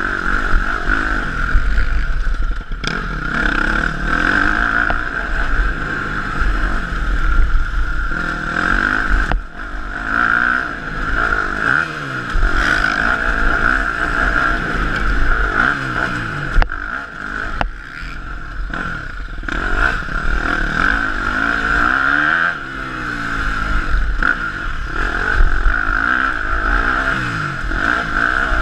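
KTM 250 SX-F four-stroke single-cylinder motocross bike ridden hard on a dirt track. The engine revs up and down through the gears, with several brief throttle chops, over a steady rushing noise picked up by a rider-mounted camera.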